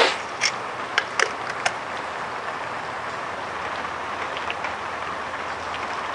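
Several sharp clicks and taps in the first two seconds as a steel tape measure and pencil are handled against a wooden board, over a steady rushing background noise.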